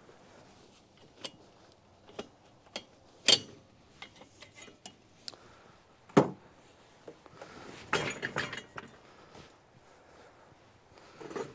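Metal clanks, clicks and rattles of the three-point hitch parts of a tractor-mounted post hole digger being handled by hand as the implement is disconnected. There are two sharp knocks about three and six seconds in, a rattling clatter around eight seconds and a smaller clatter near the end, with no engine running.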